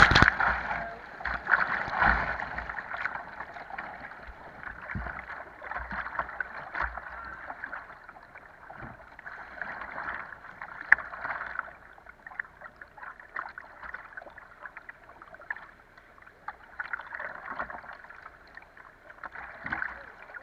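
Whitewater rapids rushing and splashing against a kayak's bow, with a wave washing over the bow-mounted camera at the start. After a couple of seconds the splashing eases to steady rushing water with scattered smaller splashes, softer in the second half.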